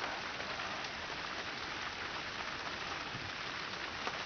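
Steady rain falling and pattering on surfaces during a thunderstorm, with a few faint drop ticks and no thunderclap.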